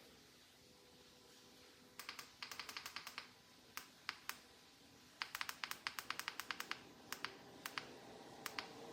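Runs of quick, sharp clicks in irregular bursts, a few groups of rapid clicks separated by short pauses, starting about two seconds in.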